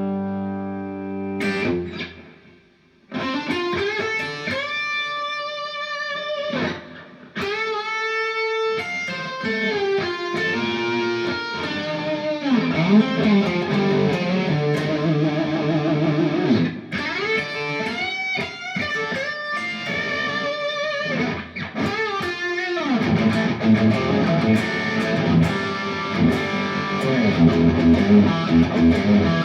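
Distorted electric guitar, an Ibanez RG with humbuckers through the Little Jim MOSFET distortion pedal into a Marshall amp and 4x12 cabinet: a bright, aggressive high-gain crunch. A held chord is cut off about two seconds in and there is a short pause. Then come single-note lead lines with vibrato, then chunky chord riffing.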